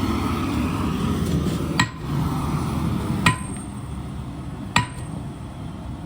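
Three hammer blows on steel about a second and a half apart, each leaving a short metallic ring, over a low steady rumble that drops back after the first blow.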